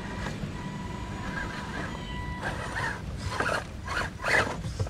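A 1/10-scale RC crawler's electric motor and drivetrain whining steadily as it creeps over wooden planks. Over the last two seconds come several short, rough bursts, the loudest about four seconds in.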